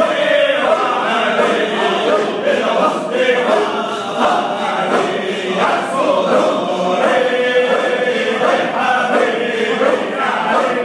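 A group of men chanting together in unison: Sufi devotional chant of a hadra, held notes running on without a break.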